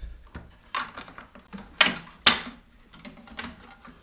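Plastic tiller body panel of a mobility scooter being worked loose and lifted off by hand: a run of small clicks and light knocks, with two sharp knocks close together about two seconds in.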